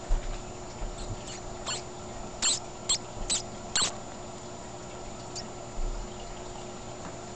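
Live pinky mice (newborn, hairless mice) squeaking: a run of seven short, high squeaks over about three seconds, then a fainter one. A steady hum sits under them, and there is a low bump near the end.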